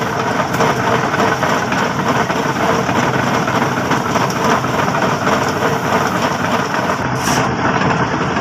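Steel concrete-pipe mould spinning on its roller wheels, a loud steady mechanical rumble and rattle, as the mould is turned to pack wet concrete into the pipe wall.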